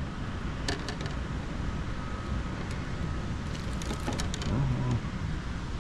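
Steady low rumble with a few light clicks and taps of fishing tackle being handled in a plastic kayak, a pair around one second in and a few more near the middle.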